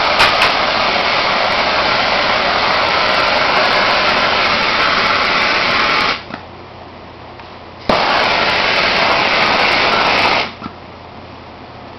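Open-flame torch hissing steadily while it heat-shrinks window tint film on a car's back window. The hiss cuts off about six seconds in, comes back about two seconds later, and stops again shortly before the end.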